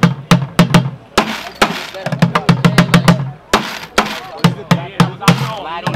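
Plastic buckets drummed fast with wooden drumsticks: quick runs of sharp cracks mixed with low, hollow thuds from the bucket tops.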